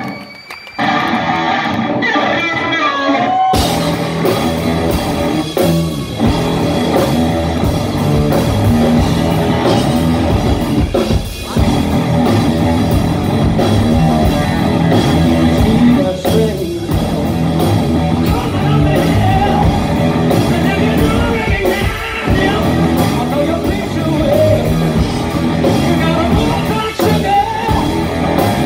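Live rock band playing loudly: a sparse electric-guitar passage, then the full band with drums comes crashing in about three and a half seconds in and keeps going.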